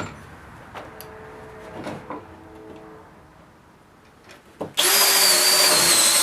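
A few light knocks and clicks, then about two-thirds of the way in a power drill starts up and runs steadily at speed, boring a 3/8-inch hole into wood.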